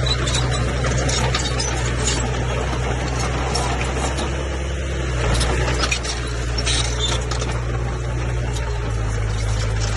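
Komatsu bulldozer's diesel engine running steadily under load, with scattered clanks and knocks from the tracks and the pushed earth.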